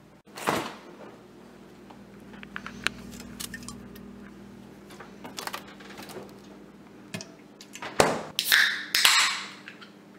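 Kitchen handling sounds: knocks and clicks as a refrigerator door is opened and items are handled, then, near the end, a sharp crack followed by a short fizzing hiss as a can of energy drink is cracked open.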